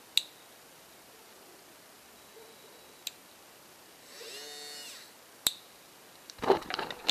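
Small electric motor briefly spinning up into a whine and winding back down, about a second long, midway through. Sharp clicks come before and after it, and loud rustling handling noise near the end.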